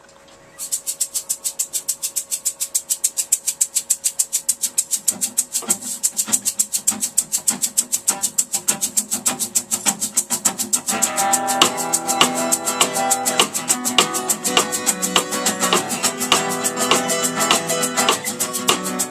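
Live band instrumental intro: a shaker keeps a steady quick rhythm from about half a second in, a guitar adds a few notes from about five seconds, and the full band comes in with strummed chords about eleven seconds in.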